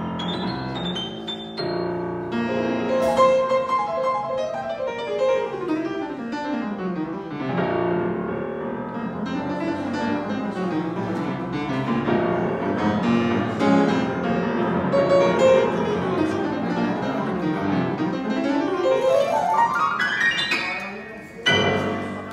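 Grand piano played solo as a warm-up. Fast runs sweep down the keyboard, then a long rising run climbs to a loud chord near the end that rings and fades.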